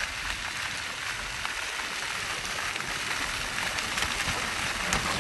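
Ground-level plaza fountain jets splashing steadily into a shallow pool, with a bicycle riding through the water and splashing near the end.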